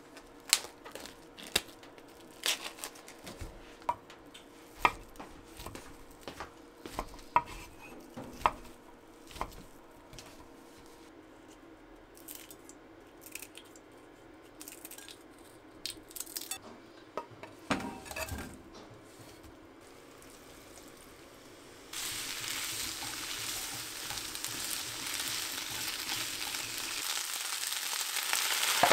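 Sharp clicks and knocks of food preparation on a wooden cutting board, then, from about two thirds of the way in, shirataki noodles and chikuwa sizzling in sesame oil in a frying pan, a steady hiss that starts suddenly and grows louder.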